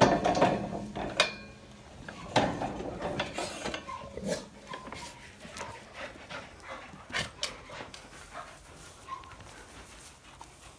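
Several dogs scrambling over stacked hay bales: the hay rustles and crackles under their feet, loudest in the first second or so, with a few short whines later on.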